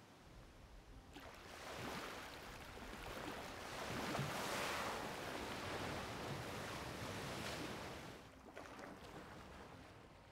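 Sea water washing and splashing around a surfacing southern right whale, with wind and waves; the rush swells to its loudest near the middle and dies away near the end.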